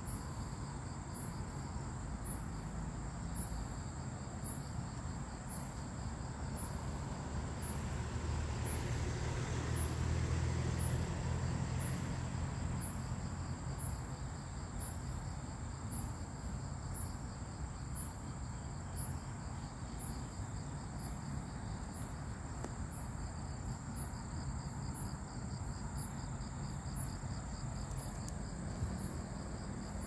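Crickets chirping in the night: short high chirps about once a second over a steady, high-pitched insect trill. Under them runs a low rumble of distant traffic that swells for a few seconds around ten seconds in.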